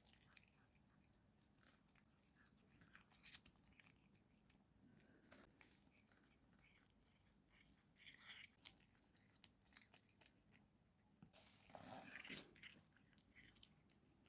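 A cat sneezing: faint short, sharp bursts among small clicks and rustles.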